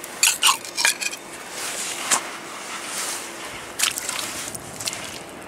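A hand trowel scraping and clinking against pebbles in wet, stony mud. There are three sharp clinks in the first second and a few more spaced out later, over a soft scraping.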